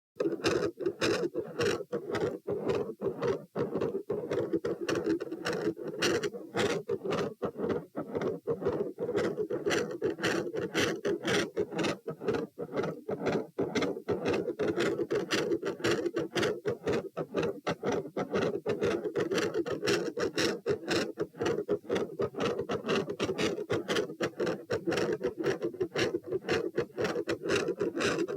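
Human heart sounds recorded at the pulmonic auscultation point: a fast run of sharp lub-dub beats, evenly repeating, over a steady background noise.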